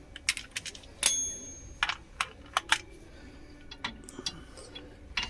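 Scattered sharp metallic clicks and clinks of hand tools and metal parts being handled, about a dozen, with one strike about a second in ringing briefly like a struck metal part.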